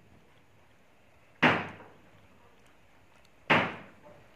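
Two sharp knocks, about two seconds apart, each dying away over about half a second.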